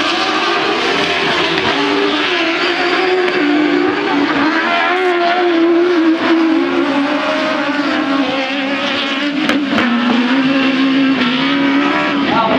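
Several autocross buggies racing on dirt, their engines at high revs with the pitch rising and falling as they accelerate and shift. A few brief clicks sound near the end.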